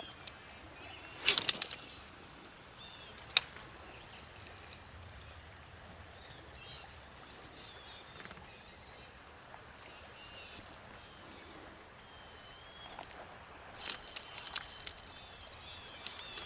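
Small birds chirping on and off over a low outdoor hiss. A brief rushing noise comes about a second in, a single sharp click, the loudest sound, a couple of seconds later, and a cluster of clicks and rustles near the end.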